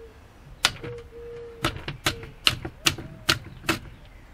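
Sharp metal-on-metal taps, about seven, coming roughly two to three a second after a first one, as a tool is knocked against the gear-change lever of a Suzuki RG500 gearbox. The lever is being worked off its splined selector shaft, onto which it had been hammered with no retaining bolt.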